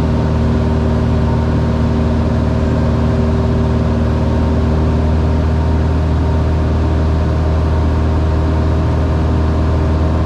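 Single-engine piston light aircraft's engine and propeller running steadily in flight, heard inside the cockpit as an even drone with a strong low hum.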